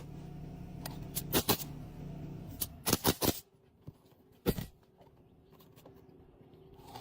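Roof shingles being laid and worked by hand: a series of sharp clicks and knocks, the loudest cluster about three seconds in, over a low hum that stops about two and a half seconds in.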